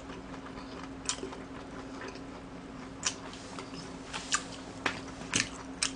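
A person chewing a mouthful of ramen noodles close to the microphone, with about six short wet mouth clicks and smacks spread through, over a faint steady hum.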